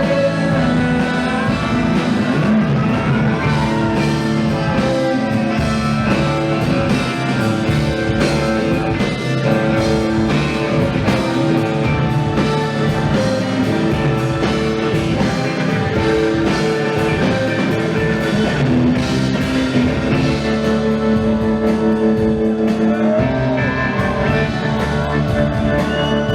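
A rock band playing live, with guitars over a steady drum-kit beat and bass.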